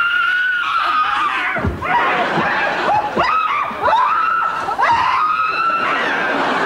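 A voice screaming on a shrill, held high note, broken several times by quick upward swoops in pitch.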